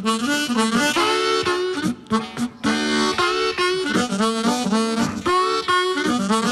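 Background music: a harmonica playing a melody with sliding, bent notes.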